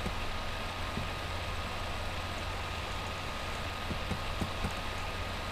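Steady background hiss with a low hum and a faint thin high tone, broken by a few faint ticks.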